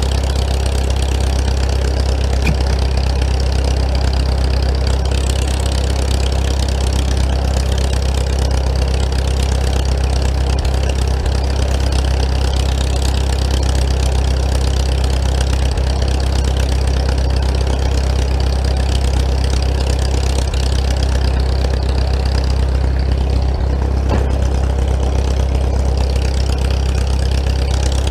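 An engine idling steadily, a low, even drone that does not change.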